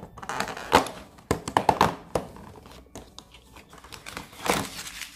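Cardboard door of an advent calendar being torn open by hand and the packaging inside crinkled and handled, with a run of sharp clicks and knocks in the first couple of seconds.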